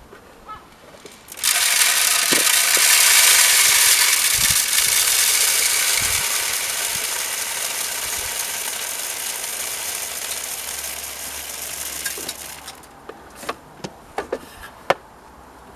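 Bird seed poured into the bird feeder's food hopper: a steady rattling pour lasting about eleven seconds that slowly thins out. A few small clicks and knocks follow near the end.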